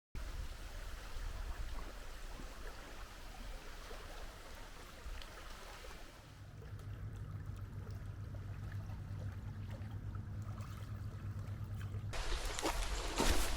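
Running water like a stream for the first six seconds, then a low steady hum. About twelve seconds in this cuts abruptly to louder noise with sharp clicks.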